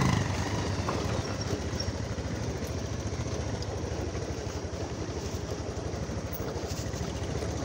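Motorcycle engines running at low speed on a rough dirt trail, a rapid, even putter with road noise over it. It is a little louder in the first second as a bike goes by, then steady.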